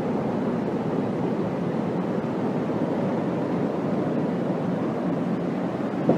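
Steady rushing of a flooded river's water, an even noise without distinct events.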